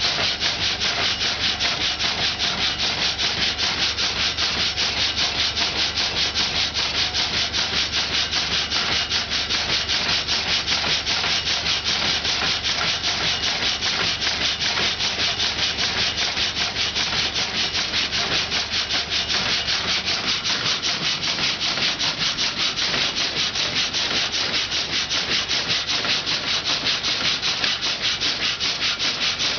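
Saw of a water-powered sawmill cutting a log, a steady scraping noise in a fast, even rhythm of strokes.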